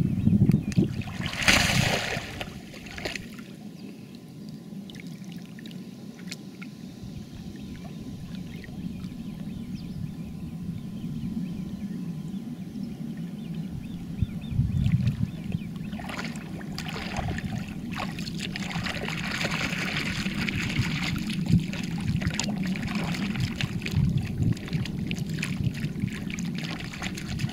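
Shallow muddy water splashing and sloshing as a person moves through it on hands and knees and scoops up wet silt by hand, over a steady low rumble. The splashing is loudest in the first few seconds, dies down, and picks up again about halfway through.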